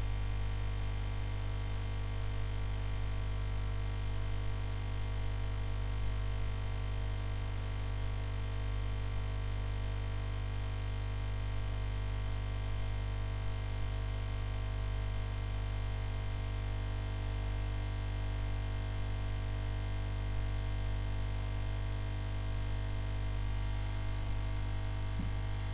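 Hot air rework station giving off a steady electrical hum and buzz, a mains drone with many higher steady overtones, while a component is soldered back onto the ECU board; the station is known to be noisy.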